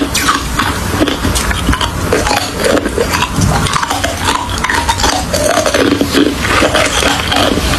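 Close-miked chewing of crushed ice: a dense, continuous run of sharp crunches with no pause.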